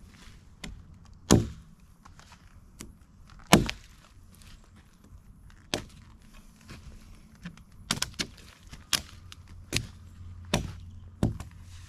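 Sharp knocks and cracks of wood, about nine, irregularly spaced a second or two apart, the two loudest in the first four seconds: pine wood being struck or snapped.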